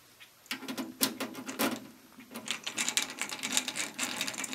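A Phillips screwdriver turning a screw out of a desktop computer's metal case panel: rapid metallic clicking and scraping in two runs, the second starting about two and a half seconds in.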